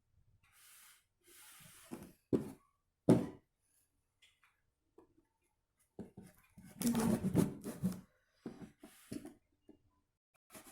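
Cardboard box being handled: rubbing and scraping, with two sharp knocks about two and three seconds in and a busier stretch of handling later on.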